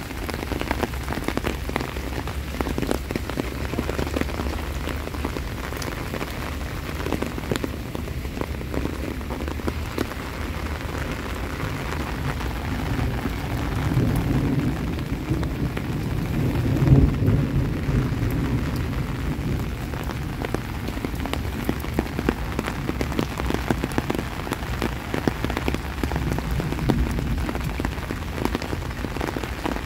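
Steady heavy rain falling, with many close drops ticking sharply. A low rumble swells and fades near the middle.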